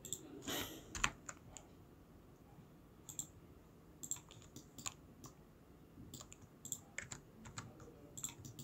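Computer keyboard keystrokes and mouse clicks, irregular and scattered, the loudest about a second in.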